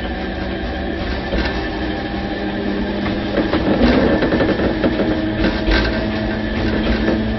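Loud running sound inside a Tobu 5050 series electric train car, whose nose-suspended traction motors and running gear date from the 1950s: a steady motor and gear hum, with the wheels clicking over rail joints a few times.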